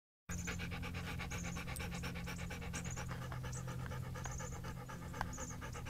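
Rapid, even panting that starts abruptly and keeps going, several breaths a second, over a steady low hum.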